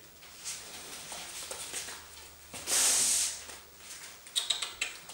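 Border collie puppy sniffing along the floor, with one short hissing snort near the middle. A few light ticks follow near the end.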